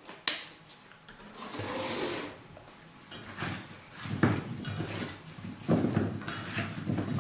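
Diced raw potatoes, sweet potato, carrot and zucchini being tossed by hand in oil in a stainless steel bowl: repeated handfuls of chunks knocking against the metal and against each other, growing louder in the second half. A single sharp knock comes just after the start.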